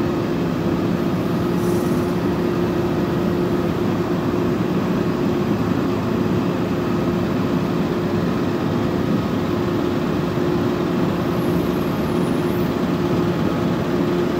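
Utility bucket truck's engine running steadily at a constant speed, a continuous even hum with no revving.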